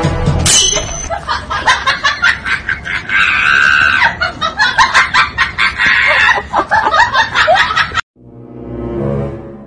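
Loud, frantic screaming and laughter in quick, choppy peals, with a drawn-out shriek about three seconds in. About eight seconds in it cuts off, and a low droning tone swells and fades.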